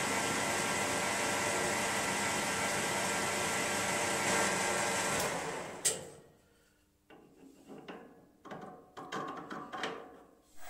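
Metal lathe running with a steady motor and gear-train whine, the chuck spinning, while a bar is turned down to diameter. About five seconds in it is switched off and runs down with a sharp click. A few scattered light knocks and clinks of handling at the machine follow.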